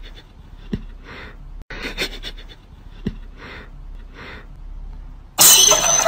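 Cat hissing in several short bursts, a couple of them opening with a sharp spit. Loud beat music cuts in suddenly near the end.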